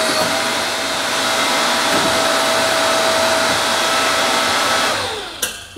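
Electric hydraulic press running its pump motor with a steady whirring hum and hiss. Near the end the motor is switched off: the sound winds down with a falling tone and stops with a click.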